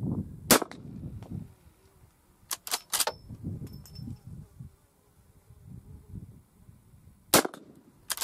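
Two shots from a lever-action carbine firing sabotted .44 Magnum rounds, the first about half a second in and the second near the end. About two seconds after the first shot comes a quick run of three metallic clacks as the lever is worked to chamber the next round.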